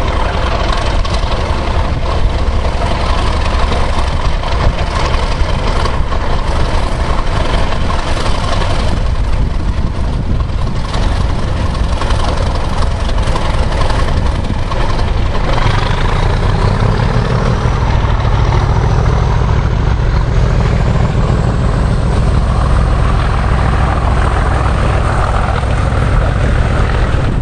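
Diesel locomotive engine running in a shed yard, its rumble growing heavier past the middle as it is worked harder and throws out exhaust smoke, with a high whine rising in pitch over several seconds.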